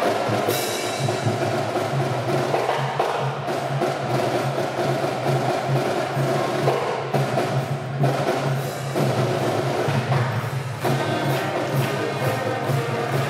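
A school pep band playing a tune: trumpets, saxophones and a sousaphone over a steady percussion beat.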